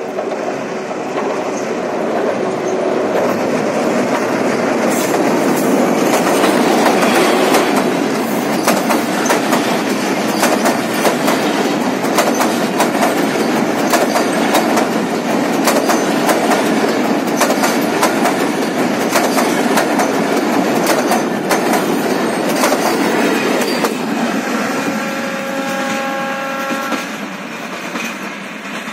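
Passenger express train running fast across a steel truss railway bridge. Its wheels clatter over the rail joints under a heavy rumble from the coaches; the sound builds over the first few seconds and eases off toward the end. A train horn sounds for about two seconds near the end.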